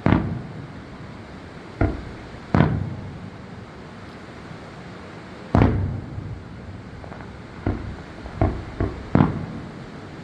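Aerial fireworks bursting: about nine booms at irregular intervals, each trailing off in a rumbling echo. The biggest bangs come at the very start, about two and a half seconds in and about five and a half seconds in, with a quicker cluster of smaller ones in the last few seconds.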